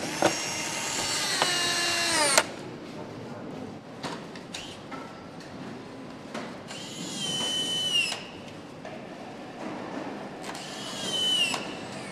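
A handheld power tool whining in three bursts. The first lasts about two and a half seconds, and its pitch steps down partway through. Two shorter bursts follow, about six and ten seconds in.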